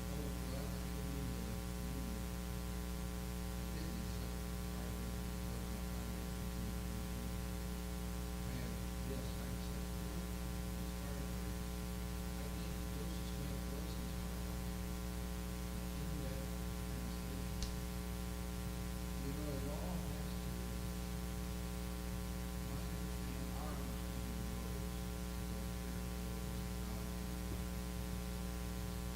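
Steady electrical mains hum with a stack of evenly spaced overtones, with faint voices murmuring underneath and a single sharp click a little past the middle.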